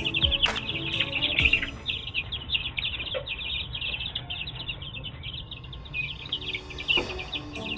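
A flock of young chicken chicks peeping: many rapid, high chirps overlapping, with a brief lull about two seconds in.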